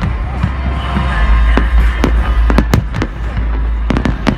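Fireworks display: aerial shells bursting in an irregular quick succession of sharp bangs, over a continuous deep low rumble.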